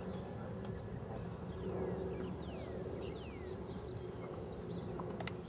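Open-air ambience: a steady low hum with a few short, falling bird chirps between about one and a half and three seconds in.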